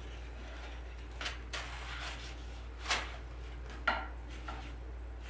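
Light rustling and a few short knocks from hands handling a foam pumpkin and silk-flower arrangement in a woven basket, the sharpest knocks about three and four seconds in, over a steady low hum.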